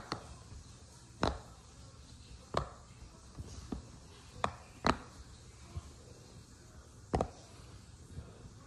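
Bubbles of a silicone Pop It fidget toy being pressed through, a sharp pop at irregular intervals of roughly a second.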